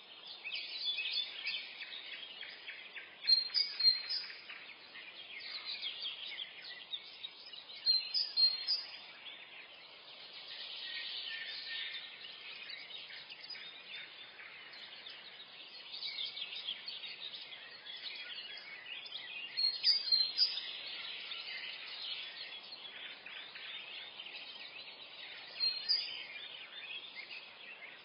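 Morning forest ambience: many songbirds singing and chirping at once, high and busy, with a few louder short chirps standing out now and then over a faint steady background hiss.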